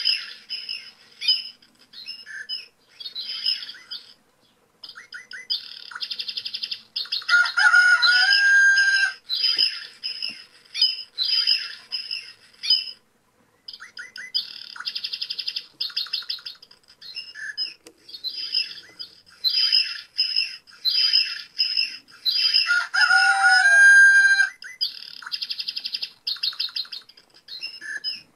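Recorded songbird chirping played back as a farm sound effect: quick, repeated high chirp phrases with short gaps between them. Twice, about fifteen seconds apart, a louder and fuller call sequence is heard, so the recording runs on a loop.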